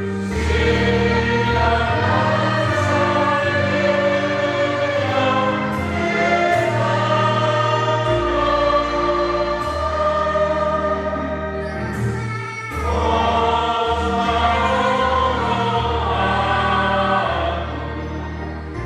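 A choir singing a hymn in several voices, in long held phrases over steady low notes, with a short break between phrases about twelve seconds in.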